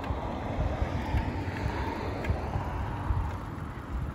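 Wind buffeting a moving microphone, an uneven low rumble over a steady outdoor rush of noise.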